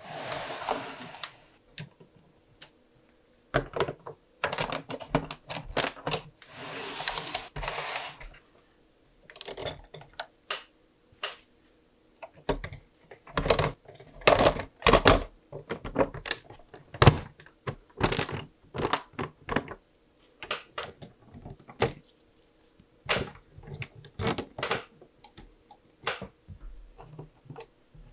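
LEGO plastic bricks and plates being handled and pressed into place: irregular sharp clicks and clacks of plastic on plastic. Two longer scraping rustles, one at the start and another a quarter of the way in, as pieces slide against each other.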